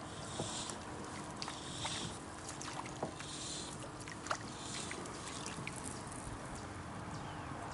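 Faint handling noise from fly-fishing tackle in a kayak: several short hissing swishes about a second apart and scattered light clicks, over a quiet steady background.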